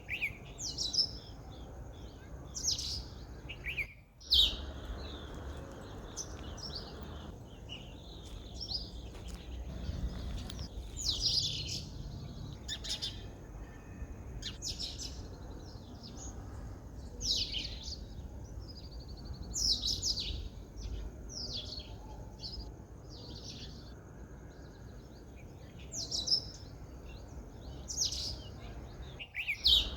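Sparrows chirping: short, sharp chirps repeated at irregular intervals, roughly one every second or two, over a faint low rumble.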